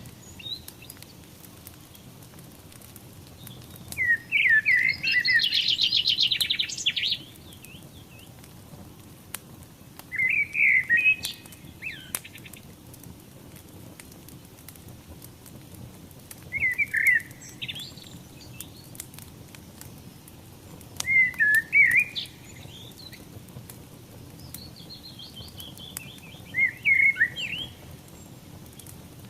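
A songbird singing short phrases about every five seconds, five in all, some ending in a fast trill, over the steady low hiss and faint scattered crackles of a wood fire.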